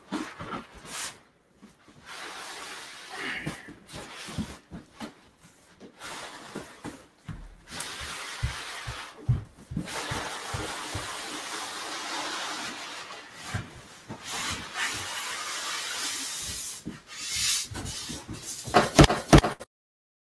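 Large cardboard shipping box being lifted and slid up off a foam inner box: rustling and scraping with scattered knocks, a few sharper knocks near the end, then the sound cuts off suddenly.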